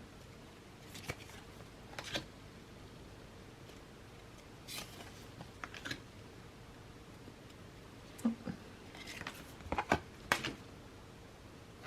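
Oracle deck cards being handled and flipped through, making scattered soft flicks and taps of card stock, with several quicker ones close together near the end.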